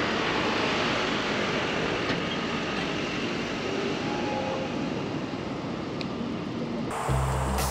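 A steady rushing roar of a passing vehicle, easing off slightly toward the end.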